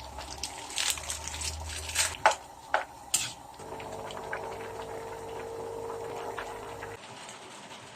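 Pot of banana-stem curry bubbling and sloshing, with a few sharp clinks in the first half. A steady hum comes in about three and a half seconds in and cuts off abruptly near the end.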